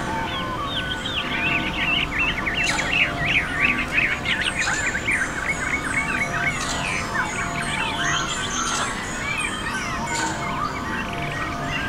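A flock or chorus of many small birds chirping and twittering together, a dense overlapping mass of quick calls that thins out in the second half, over a faint steady drone.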